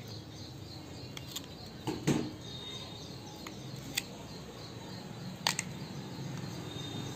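Fingers parting and rubbing through short hair close to the microphone while picking out lice eggs: a soft rustle with a few sharp clicks spread through, the loudest about two seconds in.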